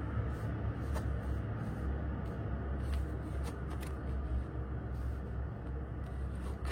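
Tarot cards being turned over and laid down by hand: light, scattered card clicks and slides, over a steady low hum.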